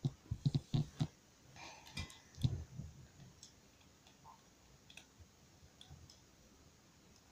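Light clicks and knocks of close handling: a quick run in the first second, another cluster around two seconds in, then only faint scattered ticks.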